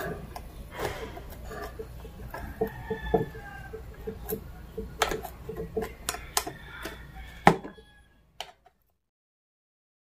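Metal spoon clicking and scraping against the plates of a Sonifer SF-6043 waffle maker as the cooked waffle is pried loose, over a steady low hum. The sound cuts off abruptly to silence about eight and a half seconds in.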